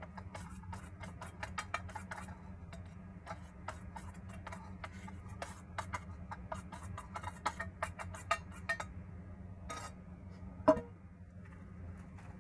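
A spoon scraping and tapping against stainless steel mixing bowls, making many quick clicks as chopped vegetables are scraped from one bowl into another and stirred. About ten and a half seconds in there is one loud metallic clank with a short ring. A steady low hum runs underneath.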